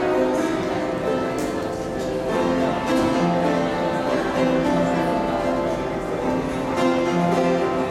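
Upright piano playing a slow piece of held chords that change about once a second.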